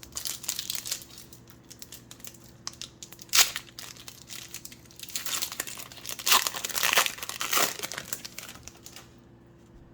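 A trading-card pack wrapper being torn open and crinkled by hand: irregular crackling with louder rips about a third of the way in and again past the middle, stopping about a second before the end.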